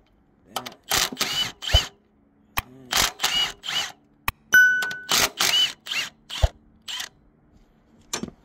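Impact wrench run in about a dozen short, sharp bursts, loosening engine mount bolts, with a few single knocks between bursts. A brief steady whine comes about halfway through.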